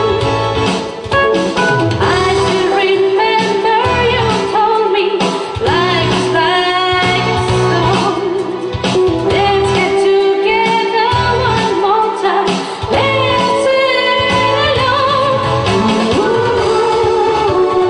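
A woman singing a ballad live, holding long notes with vibrato, over keyboard and band accompaniment.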